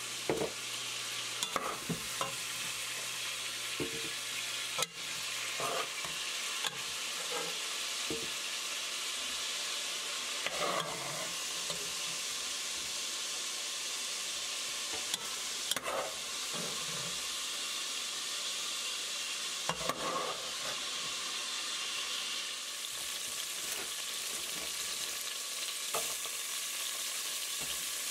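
Sliced smoked sausage sizzling steadily in hot olive oil in a stockpot. A utensil clicks and scrapes against the pot every few seconds as the pieces are stirred.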